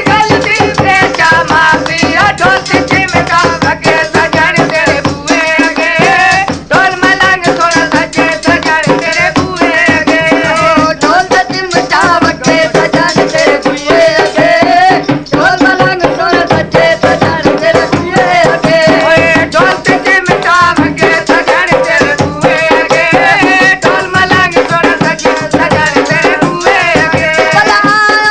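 Punjabi-Saraiki folk song (mahiye) with fast dhol drumming and the jingling of a chimta, under a wavering sung melody.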